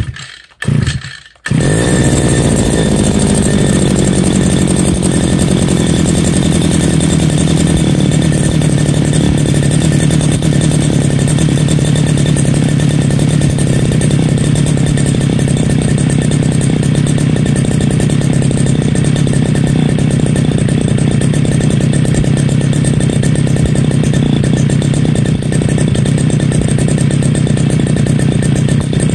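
Two-stroke engine of a Sumo backpack brush cutter being cold-started on choke with the pull cord: two short bursts, then it catches about a second and a half in and keeps running steadily. Its speed eases down slightly over the first several seconds.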